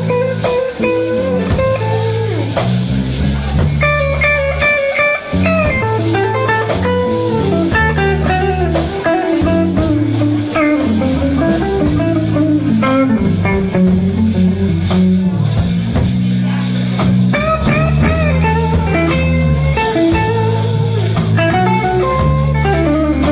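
Live blues band playing a slow instrumental passage: a lead guitar plays melodic lines over bass and drums.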